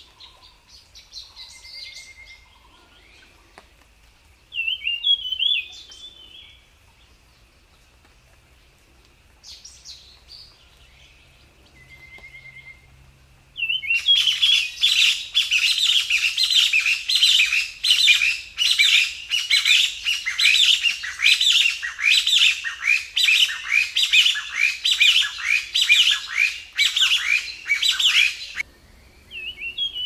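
Small songbird singing: scattered short high chirps and twitters at first, then about halfway through a loud, fast, unbroken song of rapidly repeated warbling notes that lasts some fifteen seconds and stops abruptly, followed by one short phrase near the end.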